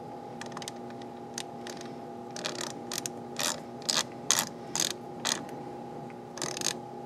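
A run of irregular sharp clicks that get louder and come faster from about two seconds in, over a steady low hum. The clicks come while the set temperature on a sous vide cooker's control panel is held down and stepped up.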